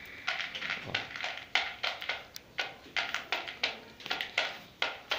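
A hungry pigeon pecking dry corn kernels from a plastic bowl: a run of irregular sharp taps, about three or four a second.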